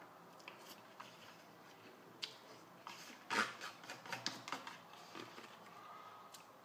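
Plastic fork clicking and scraping in a plastic salad bowl as salad is picked up, a cluster of sharp clicks about three to five seconds in.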